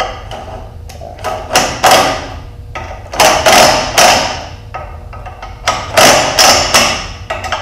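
Cordless impact driver hammering in three short bursts as it tightens down the adjustment bolts on a roller bender.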